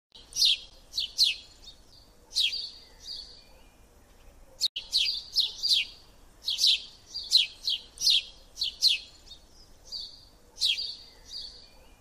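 Bird chirping: many quick, high, sharply falling chirps, some ending in a short steady whistle, coming in irregular clusters.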